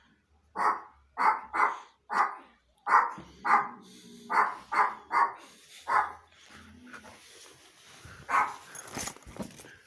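A dog barking repeatedly: about a dozen short, sharp barks, quick-fire through the first six seconds, then a couple more near the end.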